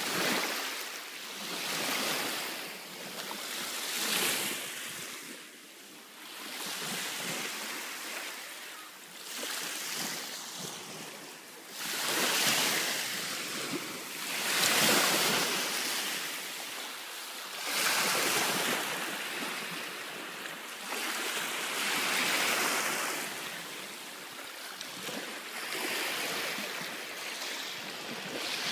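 Small waves breaking and washing up on a sandy shore, the surf swelling and fading every two to three seconds.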